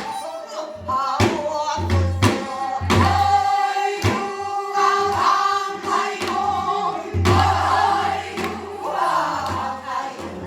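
Korean Namdo folk singing: voices singing in the southern sori style with wavering, bending held notes, punctuated by sharp drum strikes.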